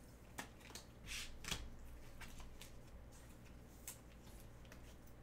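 Baseball trading cards being handled and flipped through by hand: faint card slides and light clicks, with a brief rustle about a second in.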